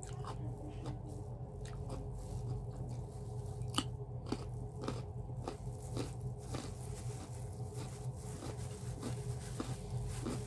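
Close-up chewing and crunching of raw carrot, with irregular crisp clicks about twice a second. A steady low hum runs underneath.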